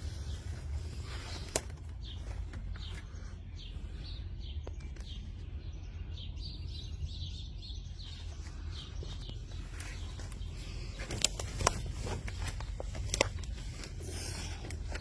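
Outdoor ambience: a steady low rumble, with a run of short, high bird chirps for several seconds and a few sharp clicks near the end.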